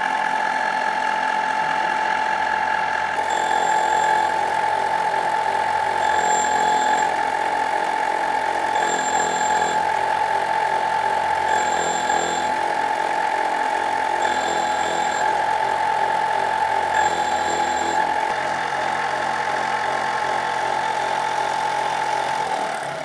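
Homemade CNC surface grinder making a grinding pass: the wheel spindle runs with a steady whine while the wheel skims a metal block. A brief high-pitched whine comes about every two and a half seconds, six times, through the middle of the pass.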